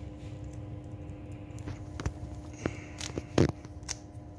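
Plastic Rubik's cube being twisted by hand: a handful of short clicks and clacks as the layers turn, starting about two seconds in, the loudest about three and a half seconds in, over a steady background hum.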